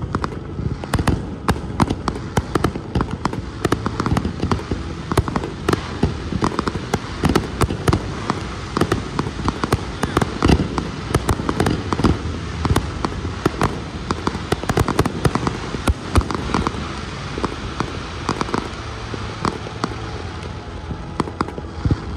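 Fireworks display: a dense barrage of aerial shell bursts, many bangs a second, thinning out near the end.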